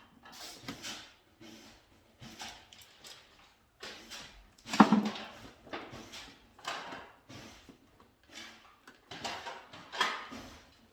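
Irregular scraping, rustling and clicking of hand work with tools and wiring materials, with one louder knock about five seconds in.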